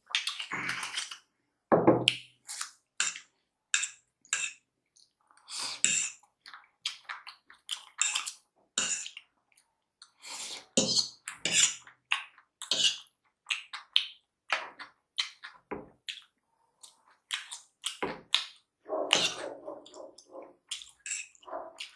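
Close-up eating sounds of a person chewing and slurping spicy paneer chowmein, as a run of short, irregular, wet smacks and clicks.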